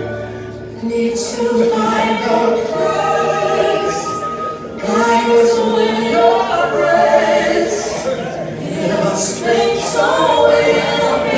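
Singing with music: voices held on long, wavering notes.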